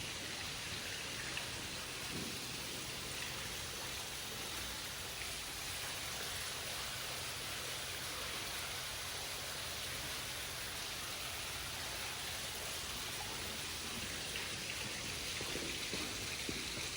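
Steady hiss of falling water, even and unbroken.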